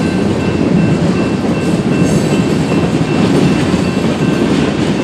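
Freight train of loaded tank cars rolling past at steady speed: a continuous rumble of steel wheels on rail with some clickety-clack from the rail joints.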